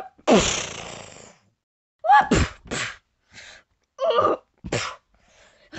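A person's voice making mouth sound effects for a fight: a loud hissing burst with a falling pitch, then a few short vocal cries.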